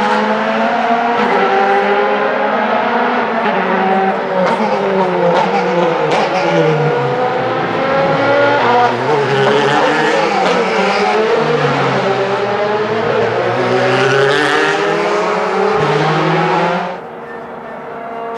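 Several DTM touring cars' 4.0-litre V8 racing engines running and revving, their pitches rising and falling and overlapping as they pass. The engine noise drops away sharply about 17 seconds in.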